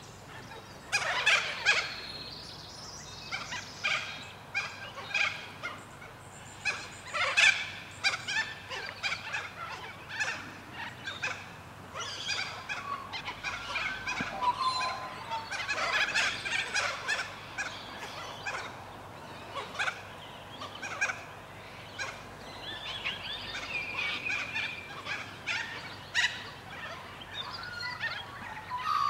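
A flock of white cockatoos calling, many harsh screeching squawks overlapping and repeating, some of them loud.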